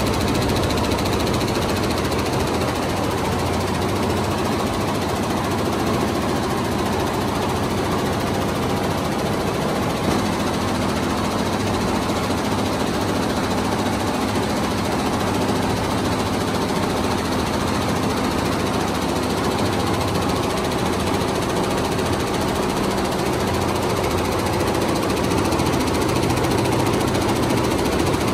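Multi-head computerized embroidery machine running steadily, its needles stitching thread into velvet at a fast, even rhythm.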